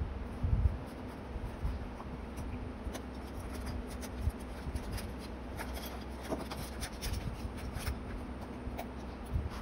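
Hands pressing and smoothing a paper label sticker onto a notebook page, with a soft thump about half a second in, then scattered light taps and paper rustles.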